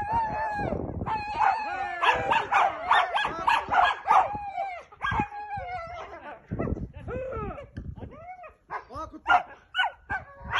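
Dogs yelping, howling and barking excitedly in many overlapping high calls, dense at first and thinning out in the second half.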